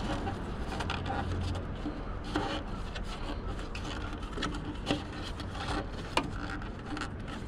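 Rubber headlight water-shield boot and plastic bulb holder being worked back onto the back of a headlight housing by hand: rubbing and scraping with scattered small clicks and snaps.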